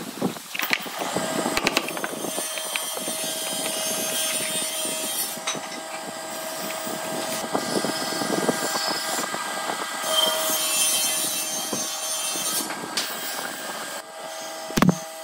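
Continuous scraping and rubbing noise of wood being worked, then a brad nailer fires once near the end with a sharp bang, nailing a small wooden block onto a wooden box.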